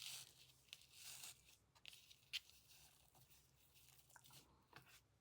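Faint snips of scissors trimming tulle ribbon, with light rustling: a couple of soft swishes and a sharp click a little after two seconds.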